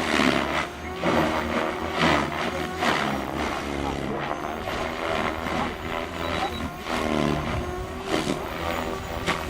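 SAB Goblin 500 electric radio-controlled helicopter flying, its rotor and motor sound swelling and easing every second or so as it is put through manoeuvres.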